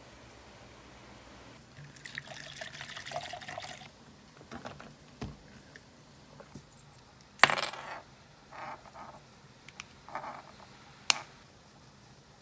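A drink poured into a cup for about two seconds, the pitch rising as it fills. Then a sharp knock as the tumbler is set down on the desk, followed by a few soft handling rustles and a click.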